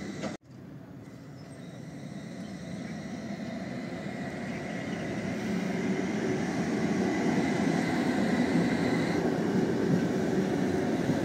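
A coupled pair of Tatra T3-type electric trams rolling past on curving track: a steady rumble of steel wheels on rails that grows louder as they come close, with a faint high steady whine over it that stops about nine seconds in.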